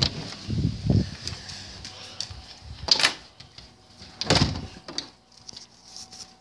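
A door being opened and shut: a few thuds and two sharp knocks.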